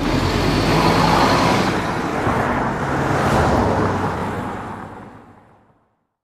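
Road traffic sound effect: vehicles passing along a city street over a low, steady engine drone, fading out near the end.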